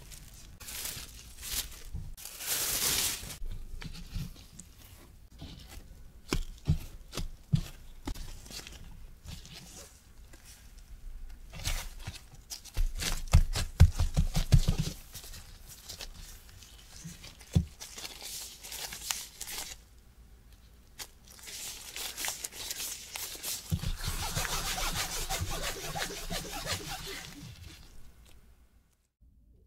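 Gloved hands handling soft yeast dough on a work surface: a rustle of cloth or wrap early on, a quick run of soft pats as a dough ball is pressed flat, and a longer stretch of rubbing as the dough is worked back into a ball.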